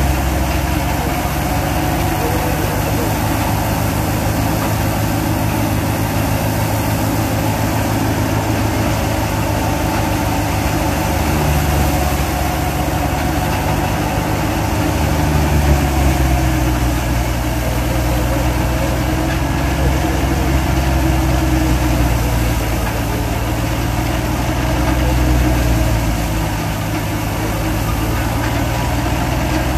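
New Holland 'Dabung' 85 hp tractor's diesel engine running steadily under PTO load, driving a wheat thresher as sheaves are fed in. The engine note shifts a little lower about halfway through.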